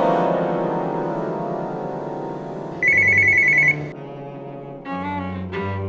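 A telephone's electronic ring, one fast warbling trill lasting about a second near the middle. It sounds over background music of sustained low bowed-string notes.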